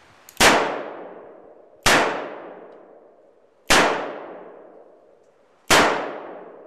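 Smith & Wesson Model 10 .38 Special revolver firing four shots in slow, aimed fire, about one and a half to two seconds apart. Each shot is followed by a ringing echo under the range's steel roof that dies away over about a second.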